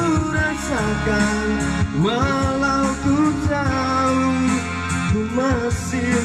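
Music: a song with a melodic lead line that slides between notes over a steady low backing.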